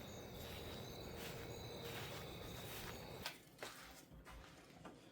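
Faint outdoor insects chirping, a steady high trill with a regular pulse, cutting off suddenly about three seconds in. A quieter stretch follows with a couple of soft clicks.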